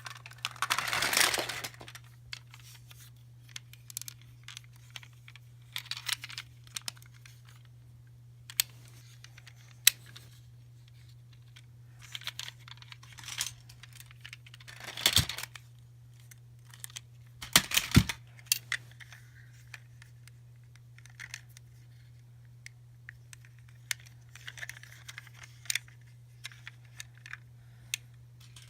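Irregular handling noises of toys and surprise-egg wrappers: crinkling and tearing, with sharp plastic clicks and small rattles at uneven intervals, over a steady low hum.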